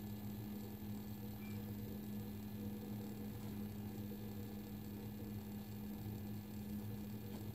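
A steady low hum that runs unchanged throughout.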